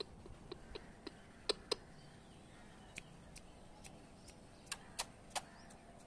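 A dozen or so faint, sharp clicks and taps at irregular spacing, loudest a second and a half in and around five seconds in: a rose-ringed parakeet's beak and feet on a metal railing post.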